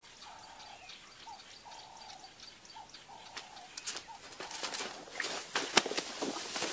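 An elephant charging through bush, with branches snapping and vegetation crashing in quick sharp cracks that grow louder over the last three seconds, the loudest crack near the end. Before that, a bird gives short calls over and over.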